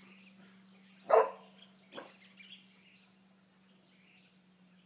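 A dog barks once, loud and sharp, about a second in, then once more, weaker, a second later. Faint bird chirps and a steady low hum run underneath.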